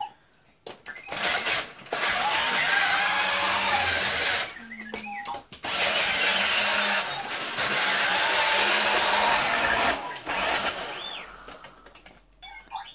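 Small electric drive motors of remote-control inflatable droid toys whirring in two long runs of a few seconds each, with short electronic droid beeps and whistles between them.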